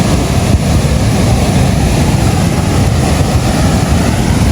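Waterfall rushing loudly and steadily, a heavy low rumble with a hiss over it, with wind buffeting the microphone.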